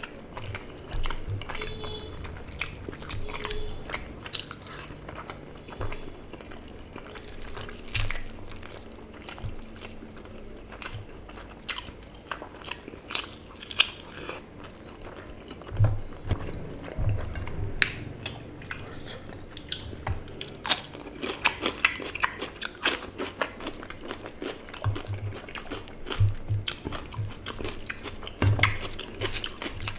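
Close-up eating sounds: wet chewing, mouth smacks and crunches as curry-soaked rice and chicken are eaten by hand, with many sharp clicks and a few low thumps.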